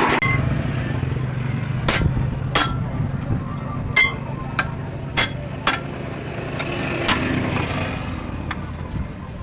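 Sharp metallic clinks, about eight at uneven intervals, each with a short ring, of a metal tool striking steel truck-wheel parts while the tyre is taken off its rim. A steady low hum runs underneath.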